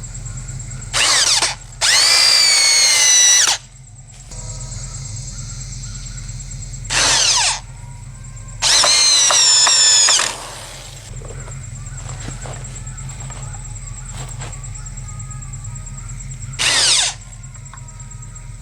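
Power drill driving screws into a wooden board: two long runs of the motor, each led by a short burst, and one more short burst near the end, the pitch shifting as the screws bite.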